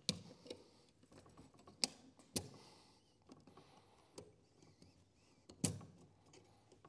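Snap-ring pliers working the snap ring off a G80 locking differential's clutch pack: a few sharp clicks with small ticks between, spread out and irregular.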